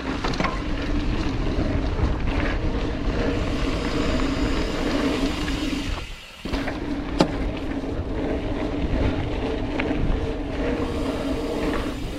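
Electric mountain bike riding down a dirt trail: a steady hum with rattle and rumble. It drops out for about half a second six seconds in as the bike leaves the ground off a step-down jump, then returns, and a sharp clack follows about a second later.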